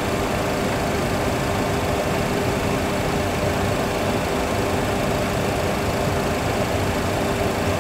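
Steady cockpit noise of a Boeing 737 full flight simulator on short final: simulated engine and airflow noise with a faint steady hum, the number 2 engine shut down after a fire and one engine still running.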